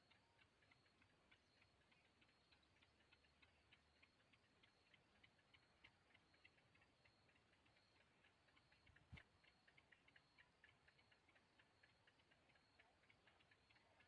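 Very faint, rapid ticking, several ticks a second and a little uneven, with one soft thump about nine seconds in.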